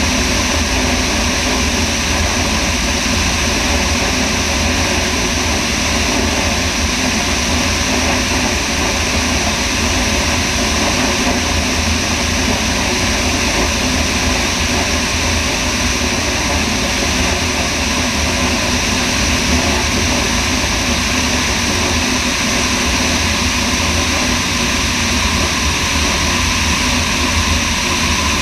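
Steady in-flight wind rush over a camera mounted outside below the wing, with a Sonex light aircraft's engine and propeller droning underneath at constant power.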